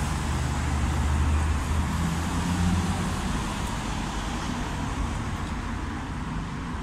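Street traffic: a motor vehicle's engine hum close by over the general noise of road traffic, loudest in the first few seconds and then easing off.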